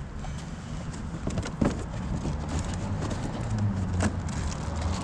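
Scattered clicks and knocks of small parts and cardboard packaging being handled, with a low engine-like hum that grows louder in the second half.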